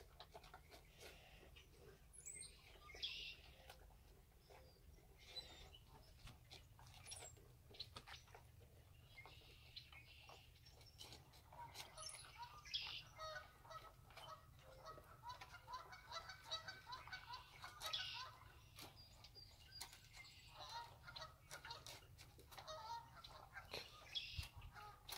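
A flock of geese honking faintly and over and over, thickest in the second half, over many short crunches and clicks of large dogs eating dry kibble from steel bowls close by.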